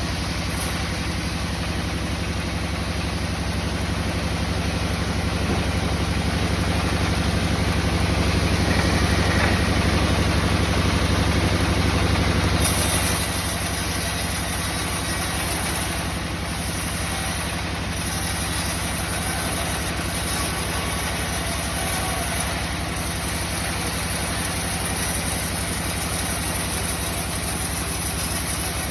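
An engine running steadily at idle. It grows a little louder for several seconds, then eases back to a steady idle about 13 seconds in.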